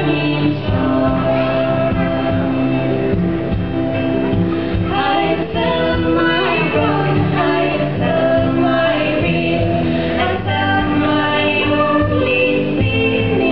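A woman sings an Irish ballad in slow, long-held notes, with a man's voice joining at times and a bodhrán (Irish frame drum) played underneath.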